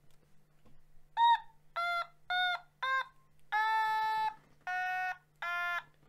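An Otamatone played as a short tune: seven buzzy, voice-like electronic notes at changing pitches, starting about a second in. The first four are short and the last three are held longer.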